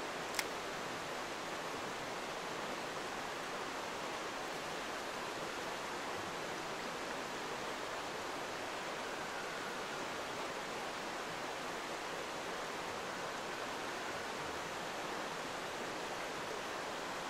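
Mountain stream rushing steadily, an even hiss of running water, with one sharp click about half a second in.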